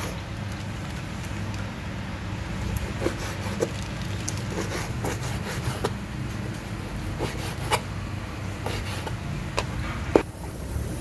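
Kitchen knife cutting raw pork on a wooden cutting board: irregular knocks of the blade striking the board over a steady low hum. The knocks stop just after ten seconds.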